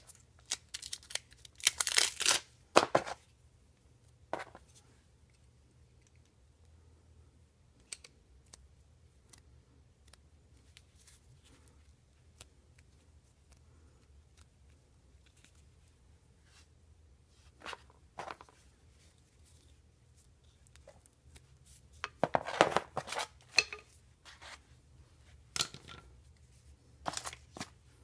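Hands handling the parts of a tubeless tire plug kit: short clicks and knocks as plastic-handled tools are picked up and set down on a table. There are two bursts of rustling and tearing, a couple of seconds in and again about three-quarters of the way through, with quiet stretches between.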